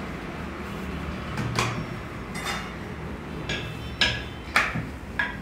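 Rolling pin and kitchen utensils knocking and clinking against a roti rolling board as chapati dough is rolled thin: about half a dozen short, sharp knocks, the loudest in the second half.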